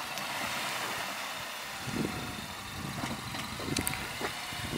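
Road vehicle noise: a steady hiss with a low, uneven rumble that starts about two seconds in.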